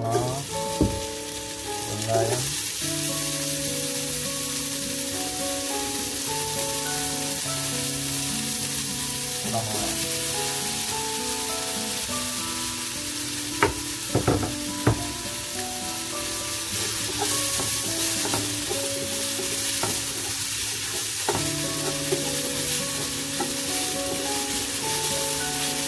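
Chopped green chillies, red onions and capsicum sizzling as they hit hot sunflower oil, then frying steadily while stirred with a wooden spatula. A few sharp knocks come about halfway through.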